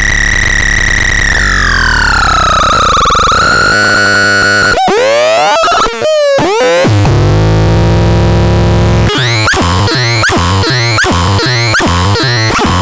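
Synthesizer making harsh electronic tones. A held tone glides down in pitch, quick swooping sweeps follow, then a low buzzing drone with noise, and from past the middle a run of quick upward chirps about two to three a second.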